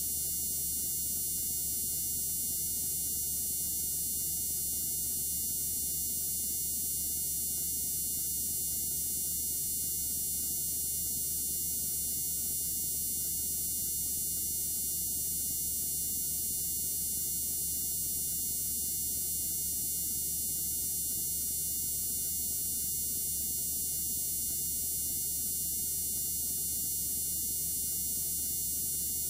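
Steady, unchanging hiss and hum with nothing else heard: the blank noise floor of the recording after the programme has ended.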